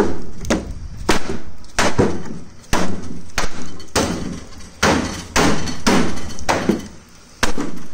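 A BD-4B wing's fiberglass rib bays being struck again and again, about a dozen sharp knocks roughly one and a half a second, each with a short hollow ring. The brittle fiberglass, held to the aluminium main spar only by its poor bond, is being knocked loose.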